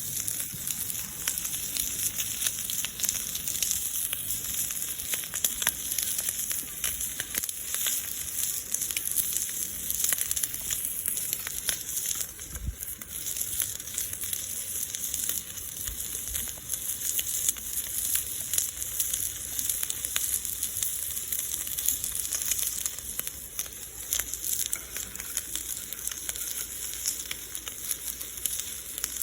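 Thick-cut bacon sizzling in a cast-iron skillet: a steady hiss dotted with many fine pops.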